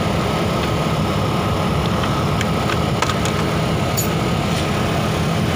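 HOWO truck's diesel engine idling steadily, heard from inside the cab. A few light plastic clicks about two to four seconds in, as a dash panel is handled.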